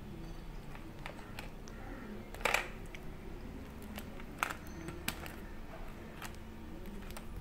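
Scattered light clicks and taps of fingers handling sweets on a stainless steel plate. The loudest is a short rattle a little after two seconds in, with a sharper tap past four seconds.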